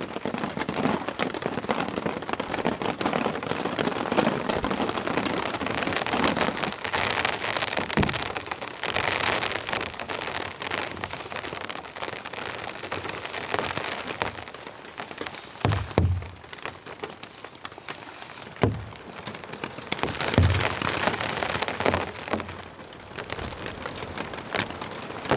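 Steady rain pattering on a tarp and tent, with water running and dripping off the tarp's edge. A few dull thumps come through in the middle, about 8 seconds in and then a cluster between 16 and 21 seconds.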